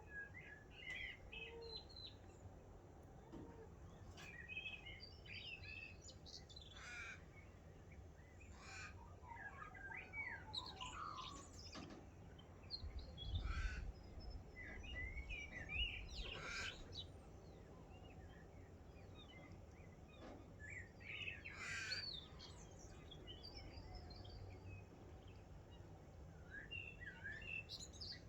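Morning chorus of several wild birds chirping and calling, short bright notes and warbles scattered throughout, with now and then a harsher call. A brief low rumble about halfway through.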